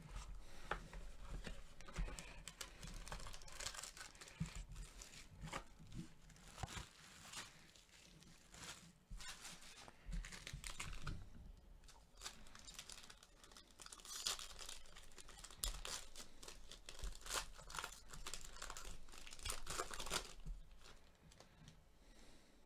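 Plastic shrink wrap and the foil wrapper of a trading-card pack being torn and crinkled by hand, in irregular crackling bursts.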